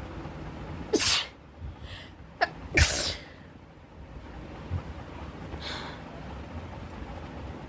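A person sneezing twice, two sudden loud bursts about two seconds apart, with a short sharp catch just before the second. A fainter breathy burst follows about three seconds later.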